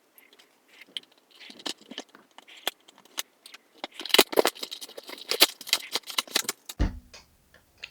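Toy box packaging being opened by hand: scattered clicks, crinkling and rustling of cardboard and plastic, busiest past the middle, with a dull thump near the end.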